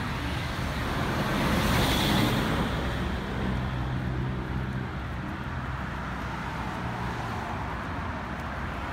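Road traffic: a steady engine and tyre noise with a low hum, swelling as a vehicle passes about two seconds in.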